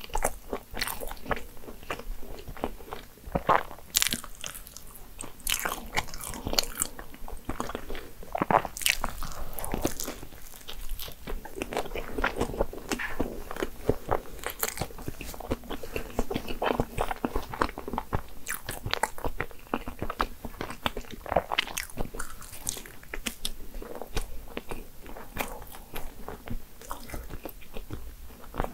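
Close-miked biting and chewing of a flaky, cream-filled croissant pastry, with sharp crunches of the crisp laminated crust coming again and again.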